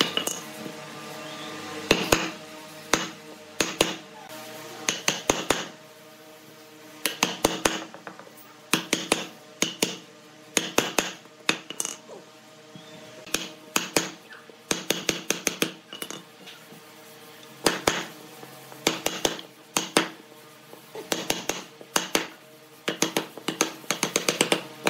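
Chisel being struck repeatedly to cut a notch into a solid log: sharp knocks in quick groups of a few blows, with short pauses between groups. Background music plays underneath.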